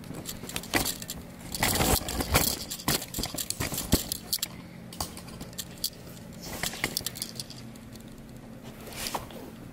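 Scattered light clinks, small metallic jingles and rustling handling noise, busiest about two seconds in, with a few single clicks later.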